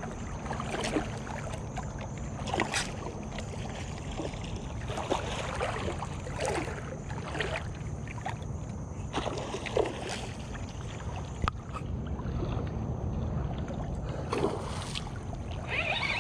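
Water washing and splashing around a fishing kayak over a steady low rumble, broken by irregular sharp splashes and knocks every second or two.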